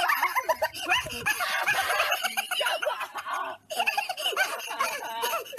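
Several people laughing, overlapping peals in quick succession, cutting off briefly about two-thirds of the way through before going on.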